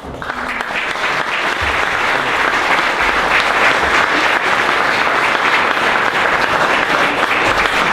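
Audience applauding: many hands clapping together, building over the first second or two and then holding steady.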